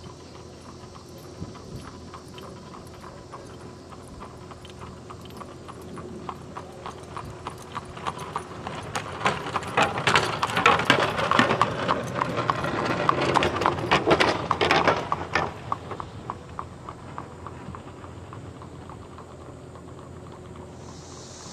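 A horse's hooves clip-clopping on pavement in a steady rhythm, drawing near, loudest around the middle, then fading away.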